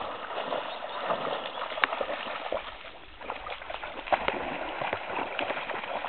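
A dog splashing in water, swimming and then wading in shallows: a steady sloshing wash broken by many small, sharp splashes.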